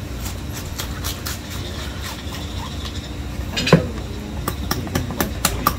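Knife working into a bluefin tuna's head and gill area: a run of short, sharp clicks and scrapes as the blade meets bone. There is one louder knock a little past the middle and quicker clicking near the end, over a steady low hum.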